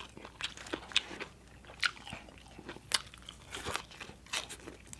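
A person chewing crunchy food close to the microphone, with irregular sharp crunches and wet mouth clicks: mouthfuls of papaya salad.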